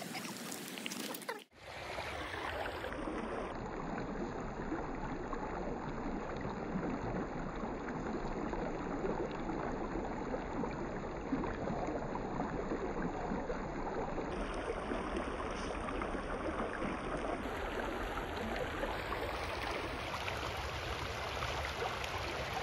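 Shallow river water rushing and rippling over stones in a rocky bed, a steady wash of water noise that sets in after a sudden dropout about a second and a half in.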